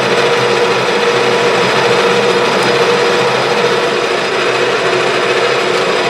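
Metal lathe running steadily under power while turning down a lead screw shaft, with a steady hum and the hiss of the cut.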